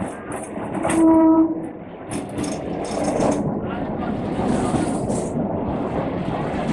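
Electric multiple unit local train sounding its horn: one loud, steady blast about a second in and a shorter, fainter one a little later. Then the train's steady running rumble builds and carries on.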